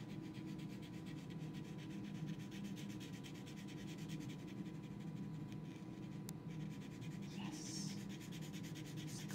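Black Sharpie permanent marker rubbing and scratching faintly across watercolour paper as strokes are drawn, with a brief sharper stroke near the end, over a steady low hum.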